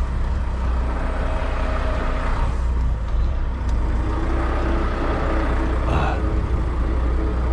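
Heavy truck's diesel engine idling steadily, with a deep even hum. A short noise comes over it about six seconds in.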